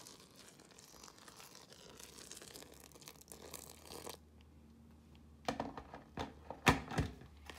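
Boiling water poured in a thin stream onto flour in a bowl, a soft steady hiss that stops about four seconds in. A few sharp knocks follow near the end.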